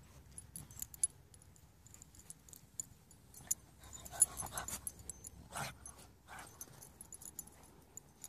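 Small dogs digging and nosing in sand: light metallic jingling of collar tags and scattered scrapes and clicks throughout, with a few short sniffing snuffles in the middle.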